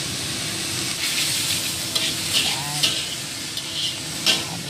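Dried mushrooms sizzling in a wok on low heat as a spatula stirs and scrapes them, cooking off the water they were given. Several scrapes come in the second half, with a sharp knock near the end.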